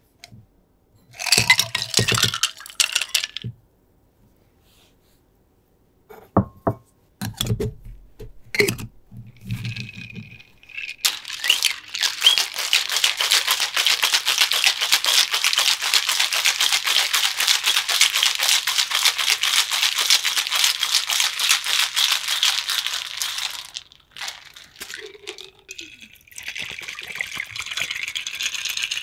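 Ice rattling fast and steadily in a stainless steel cobbler shaker, shaken hard for about twelve seconds. Before that comes a short clatter and a few knocks as the shaker is filled and capped. Near the end, the chilled drink pours out through the shaker's strainer into a glass.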